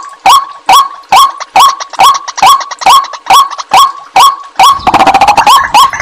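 White-breasted waterhen calls used as a bird-trapping lure: a repeated 'ruak' call, each short call rising in pitch, coming evenly about twice a second. About five seconds in, the calls speed up into a faster, overlapping chatter.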